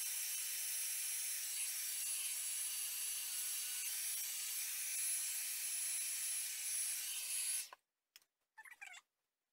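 Babyliss Big Hair rotating hot-air brush blowing: a steady airy hiss with a thin high whine from its fan motor, which stops abruptly near the end.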